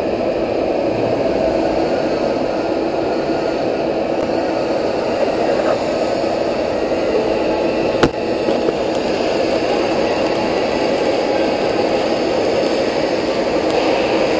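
Steady hiss and crackle of a shielded metal arc (stick) welding arc burning while a reinforcing pad is welded around a nozzle on a pressure-vessel head, with one sharp click just past halfway.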